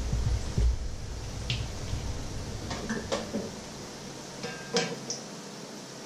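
Fritters frying in a pan of hot oil, a steady sizzle. A heavy knock right at the start as the bowl of batter is set down on the wooden counter, then sharp metal clinks as a mesh splatter screen is handled and laid over the pan.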